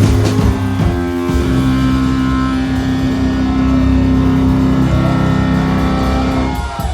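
Live rock band finishing a song: the drumming stops about a second in and a distorted chord is left ringing, held steady, before it drops away right at the end.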